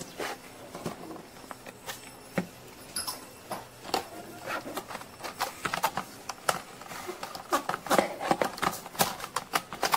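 Plastic shell and top cover of an ILIFE B5 Max robot vacuum being handled and fitted back together: irregular clicks, knocks and rattles of hard plastic parts, coming thicker in the second half.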